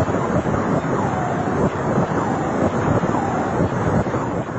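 Sonification of X-ray data from the black hole GRS 1915+105: a dense rushing noise like wind or surf, with faint wavering whistles running through it. It begins to fade near the end.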